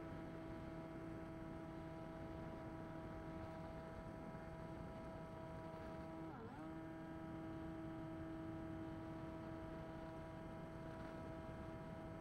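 Electric pusher motor and propeller of an Easystar II RC plane humming at a steady pitch in flight, dipping briefly in pitch about six seconds in, as the throttle is eased, and coming straight back up.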